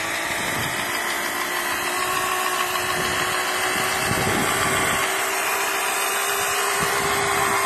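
Children's electric mini dirt bike's motor running with a steady whine over a hiss, holding one pitch throughout.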